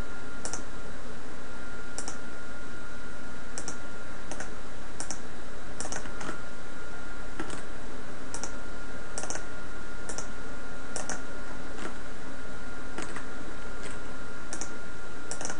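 Computer mouse clicks, short and sharp at an uneven pace of roughly one a second, as points are clicked one after another to draw a line. Behind them runs a steady recording hiss with a faint constant whine.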